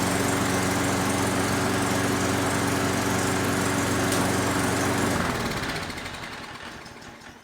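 ALDI Garden Line lawn mower's four-stroke overhead-valve engine running steadily, now starting and running after a carburettor clean and fresh fuel. About five seconds in it stops and winds down.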